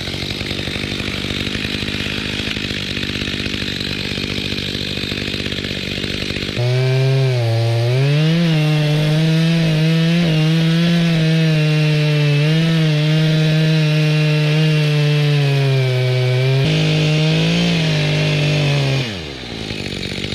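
Two-stroke chainsaw cutting through a live oak. It runs steadily at first, then about six seconds in it goes louder at full throttle under load, its pitch wavering as the chain bites. Near the end the throttle is let off and the engine winds down in pitch.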